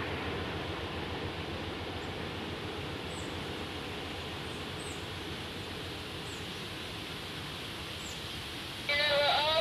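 Distant passenger train rolling by as a steady low rumble that slowly fades, with faint short high chirps every second or so. Near the end, loud voices cut in abruptly.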